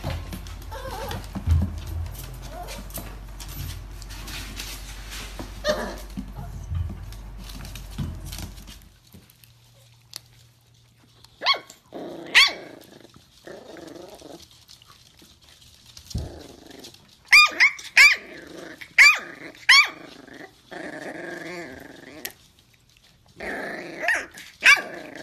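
Miniature dachshund puppies growling and yipping over a bone, with bursts of short high-pitched yips about twelve seconds in, again several times in quick succession near eighteen to twenty seconds, and once more near the end. Before that, over the first third, a low hum with scattered knocks.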